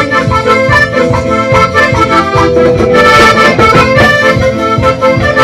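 Accordion-led folk dance music: held, sustained accordion notes over a steady, evenly pulsing bass beat.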